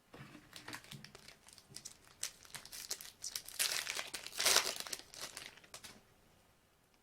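Plastic wrapper of a Panini basketball card pack crinkling and being torn open, the loudest rip about four and a half seconds in.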